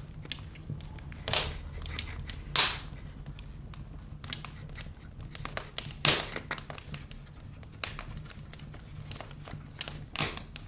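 Handling noises: several short bursts of crinkling and rustling, like plastic or paper being crumpled or tape being torn, with small clicks between them over a low steady hum.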